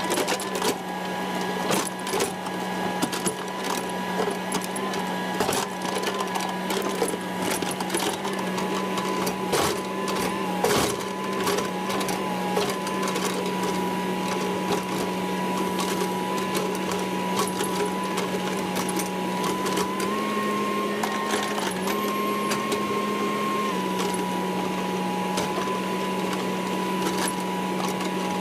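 Diesel engine of a 308 mini excavator running steadily at a constant speed, with scattered clanks and knocks. Its pitch rises slightly about two-thirds of the way in and settles back a few seconds later.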